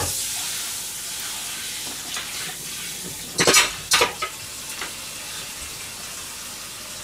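Butter sizzling steadily in a frying pan under a sandwich toasting crisp, with two short, louder bursts of crackle a little past halfway.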